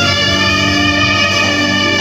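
Live praise band music, with a saxophone holding one long note over keyboards and drums.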